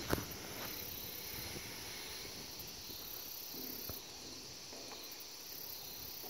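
Steady high-pitched chorus of crickets and other insects, with one sharp knock just after the start.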